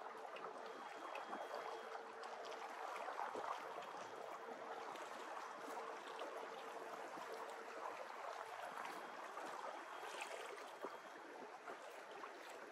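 Choppy water lapping and slapping against a small boat's hull as it moves, with a few light knocks. A faint steady hum from the boat's electric trolling motor runs under it and stops about eight seconds in.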